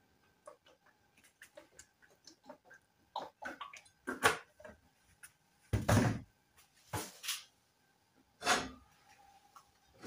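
Cooking oil poured from a plastic bottle into a frying pan, then the bottle and pan handled on the stove and counter: a run of small clicks and several short knocks and scrapes, the heaviest a thump about six seconds in.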